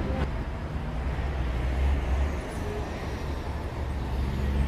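Road traffic noise: several cars driving through an intersection, a steady low engine-and-tyre rumble that swells a couple of times as cars pass.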